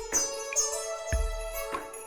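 Background music: instrumental, with held tones over a slow beat and plucked notes.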